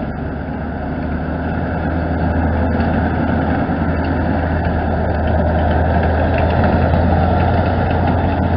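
WWII German half-track's engine running as the vehicle drives past, a steady low hum that grows louder over the first few seconds as it comes closer.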